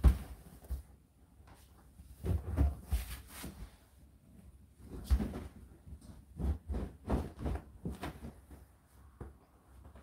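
Laundry being dropped by hand into the open drum of an Indesit IDC8T3 condenser tumble dryer: irregular soft bumps and cloth rustles, in several clusters a second or two apart, with a sharp knock at the very start.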